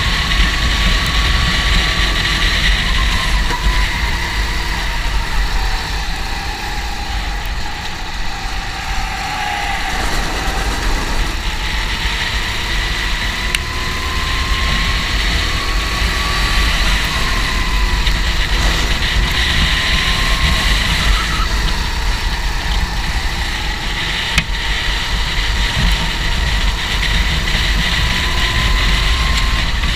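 Kart engine running hard around a circuit, its whine rising under acceleration and dropping off into the corners every few seconds, over a steady low rumble.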